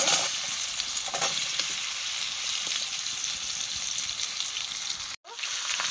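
Boiled amla segments sizzling as they go into hot mustard oil in a karahi: a steady frying hiss. It cuts out for an instant about five seconds in.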